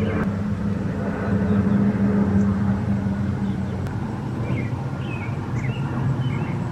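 Jet engines of an Airbus A350 airliner flying overhead: a steady low rumble with a hum that is strongest in the first few seconds. A few faint high chirps come in during the second half.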